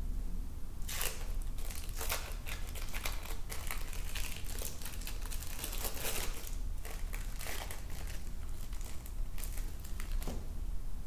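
Crinkly wrapping being handled in a kitchen: dense, irregular crinkling and crumpling that starts about a second in and stops near the end.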